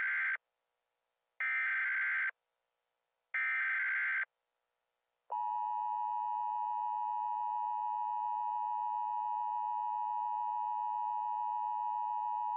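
Emergency Alert System broadcast tones: three short bursts of screeching digital SAME header data about a second apart, then from about five seconds in the steady two-tone EAS attention signal (853 and 960 Hz) held for about eight seconds. Together they mark the start of a new alert message.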